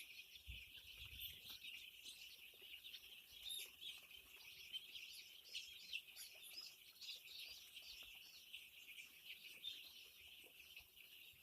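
A flock of five-day-old chicks peeping: a faint, continuous chorus of many overlapping high cheeps.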